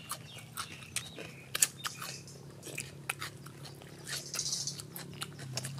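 Close-miked eating sounds: chewing, lip smacks and irregular wet clicks as boiled beef tail is pulled apart by hand and eaten.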